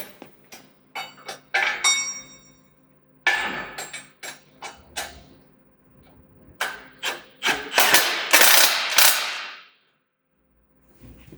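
Metal clinks and knocks from hand tools and metal parts during sawmill bed assembly. One clink about two seconds in rings on briefly. Near the end comes a dense run of rapid clicks that stops suddenly.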